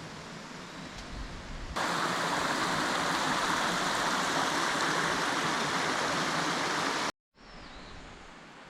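Small mountain stream running, a steady rush of water. It gets much louder all at once just under two seconds in, cuts out suddenly about seven seconds in, and comes back faint.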